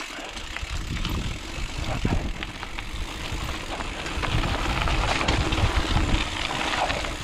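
Wind buffeting the microphone and tyres rumbling over a dirt trail as a rigid mountain bike coasts downhill without pedalling, with constant small rattles and knocks from the bike. The noise grows louder over the first few seconds as speed builds.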